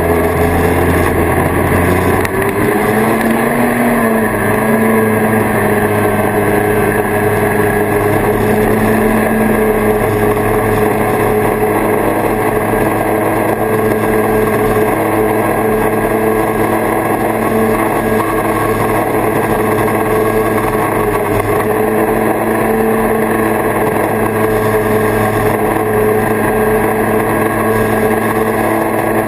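1979 Kawasaki Invader 440 snowmobile's two-stroke engine, running low at first, then revving up about two seconds in and holding a steady cruising speed.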